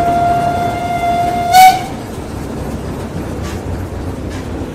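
Steam whistle of the GtL 4/4 tank locomotive 98 886, heard from inside the coach, blowing one steady note and cutting off in a short loud burst about a second and a half in. After it, the coach rumbles along the track with faint clicks from the rail joints.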